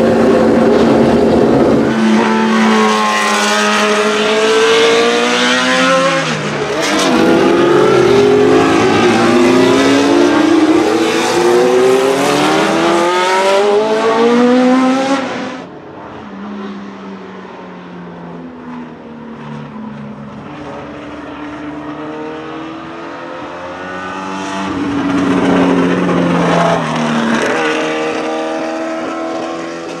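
The Ford Cosworth DFV 3.0-litre V8 of a 1977 Tyrrell P34 six-wheel Formula 1 car. It holds a steady note for a moment, then accelerates hard, its pitch climbing again and again through several upshifts. About halfway the sound cuts suddenly to a quieter, more distant engine that rises and then drops in pitch as the car passes near the end.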